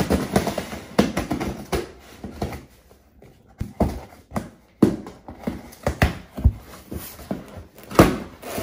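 Cardboard shipping box being opened by hand: packing tape scraped and torn and the flaps pulled, a run of irregular scratchy crackles and sharp clicks, loudest about eight seconds in.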